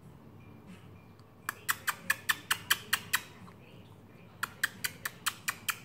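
Two quick runs of sharp clicking chirps, about five a second: nine or so, a short pause, then seven more.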